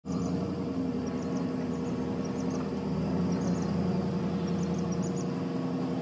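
Pickup truck's engine running steadily as it backs a dump trailer up a driveway, with faint high chirps now and then.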